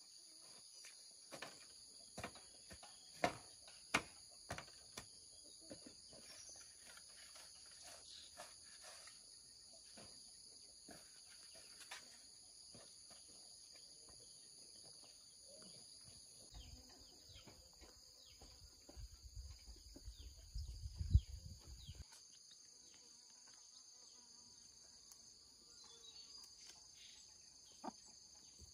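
Faint, steady high-pitched chorus of insects, with scattered light knocks in the first half and a low rumble between about 17 and 22 seconds in.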